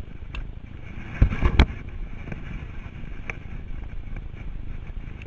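Wind rushing over the microphone of a handlebar-mounted camera on a road bike descending at speed, a steady low rumble with a short, loud buffet about a second and a half in.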